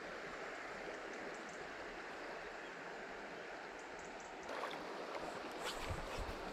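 Steady rush of a fast-flowing river current. About four and a half seconds in, the water sound turns louder and brighter, with a few light clicks and low thumps near the end.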